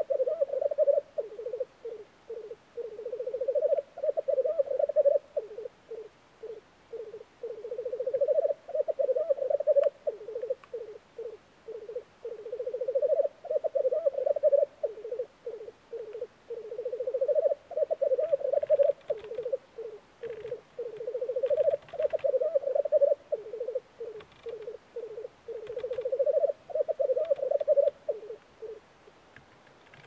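Male black grouse rookooing, the low bubbling, cooing display song of the lek. Phrases of about two seconds repeat every four to five seconds, each trailing off into a string of short separate coos. The song stops shortly before the end.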